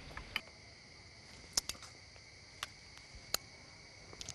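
Crickets chirping steadily in the night air, with several sharp, scattered clicks.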